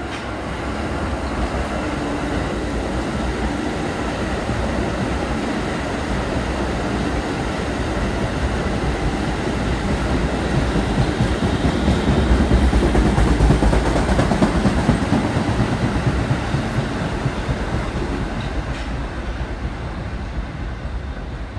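New York City subway train of R46 cars running past on the adjacent track, wheels rolling over the rails. It grows louder to a peak a little past halfway, then fades as it pulls away.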